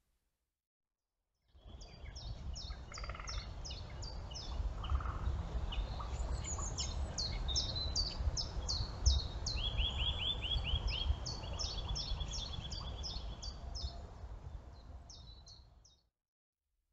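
Songbirds singing: series of short, high, repeated notes and quick trills, over a steady low rumble. The sound starts about a second and a half in and cuts off suddenly near the end.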